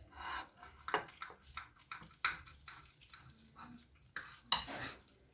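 A table knife cutting through an egg-and-bacon omelette, scraping and clicking against a ceramic plate: a handful of sharp, irregular scrapes and taps.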